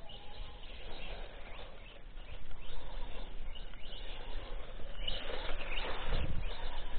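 HBX 16889 1:16-scale electric RC monster truck driving over grass, its motor and tyres growing louder as it comes close, loudest about five to six seconds in.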